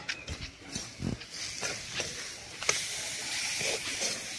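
Bathua greens sizzling as they fry in a metal karahi over a wood-fired clay stove, with the metal spatula knocking and scraping against the pan. The sizzling builds during the first few seconds, then holds steady; there is a short low sound about a second in.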